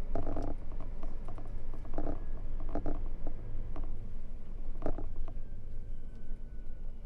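Irregular clicks and short rasping noises, with a steady low rumble underneath in a truck cab.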